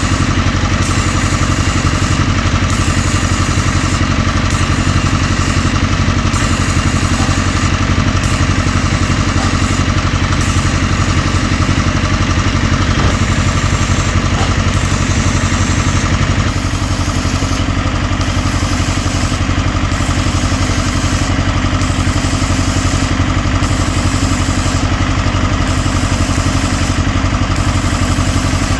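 An engine running steadily with a fine clatter. It drops slightly in level about sixteen seconds in.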